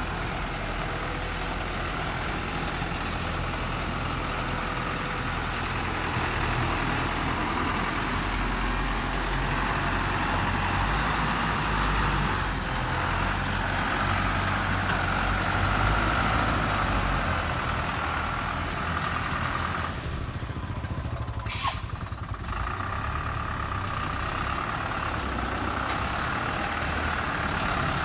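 Diesel engine of a Thaco Forland dump truck running as the truck moves slowly along a muddy dirt road. Its note swells and eases. About three-quarters of the way through there is a short dip in level with a sharp click.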